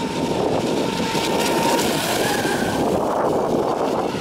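Brushless electric motor of a radio-controlled speedboat whining at speed, a thin high tone that climbs higher about halfway through, heard faintly over a loud, steady rush of noise.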